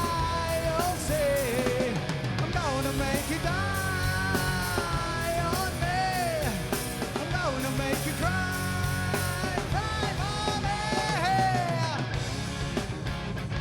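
Live rock band playing: a lead vocalist singing over electric guitars, bass guitar and a drum kit. The singing stops about twelve seconds in, leaving the guitars playing.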